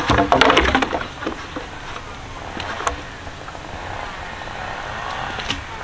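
Green bamboo poles knocking and clattering against each other as one is picked out of a pile, loudest in the first second, then a few single knocks as the pole is lifted and handled.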